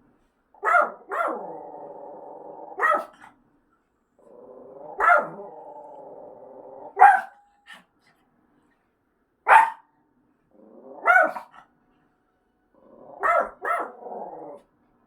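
Pet dog barking in short clusters, about nine barks in all, with a steadier sound held between the first few barks. The dog is barking in reaction to a fire-inspection siren from the apartment's speaker.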